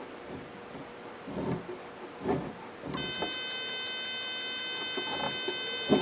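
A multimeter's continuity beeper comes on about halfway through and holds one steady high tone, signalling continuity across the Z-axis end-stop microswitch. Before it there are a few faint soft knocks.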